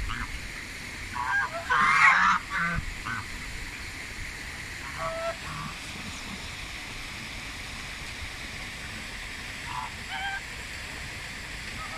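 Domestic geese honking: a loud run of calls about two seconds in, then single shorter, quieter honks around five and ten seconds in, over a steady hiss.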